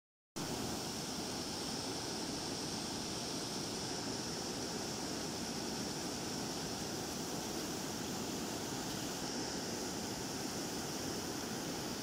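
Flash-flooded forest stream, muddy floodwater rushing steadily through rapids and over boulders.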